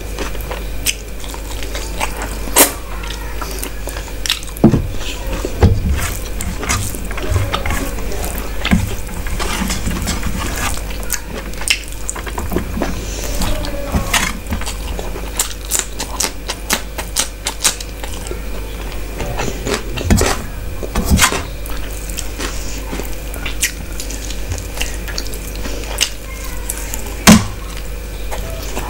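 Close-miked eating by hand: wet chewing, lip smacks and squishing as fingers mix rice and curry on a steel plate, with many short sharp clicks coming irregularly. A steady low hum sits underneath.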